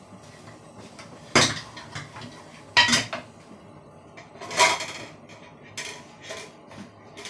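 Kitchen dishes and utensils clattering on a counter: three loud sharp knocks spaced about a second and a half apart, then a few lighter taps near the end.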